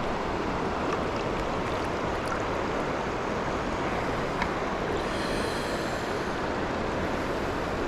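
Steady rush of a large river's flowing water, with a few faint ticks over it.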